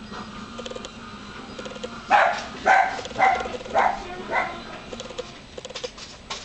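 An animal calling five times in quick succession, short bark-like calls about half a second apart, over a steady background of wind.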